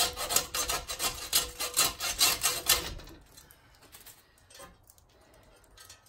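Quick, rasping rub strokes as a pheasant carcass is worked against the Bird Hitch's metal plate, feathers and skin scraping; the rubbing stops about three seconds in and it goes quiet.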